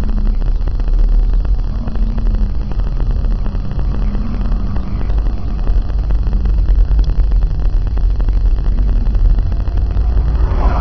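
Steady road and engine rumble of a moving car, heard from inside the car with heavy low wind buffeting on the microphone.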